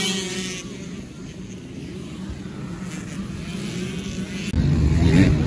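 Motocross dirt bike engines fading as the pack rides away into the distance, leaving a faint hum. A little over four seconds in, the sound jumps to the louder engines of bikes close by.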